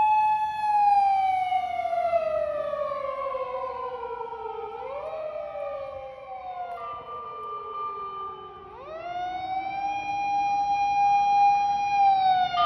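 Japanese fire engine sirens wailing: one tone holds, then winds slowly down over several seconds, while sirens from at least one more engine overlap. Near the end one siren sweeps quickly up, holds high and begins to fall again.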